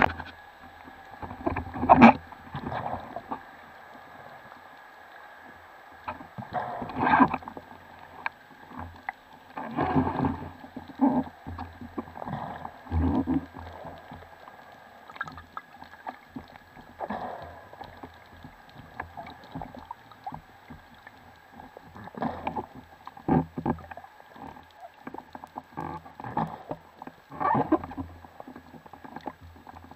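Underwater sound through an action camera's waterproof housing: a faint steady rush of water with irregular swishes and knocks as the freediver swims and moves the speargun, the loudest about 2 and 7 seconds in.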